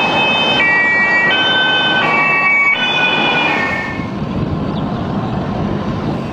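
A synthesized melody of high electronic tones stepping from note to note, over a steady rushing vehicle noise. The tones stop about four seconds in, leaving the noise of a truck driving by, which swells toward the end.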